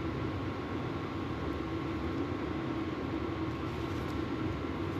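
Steady low hum and hiss of mechanical background noise, like a running fan, with no distinct events.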